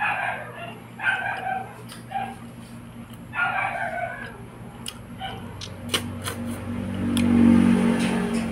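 A rooster crowing, broken into several calls over the first four seconds. A low hum swells near the end.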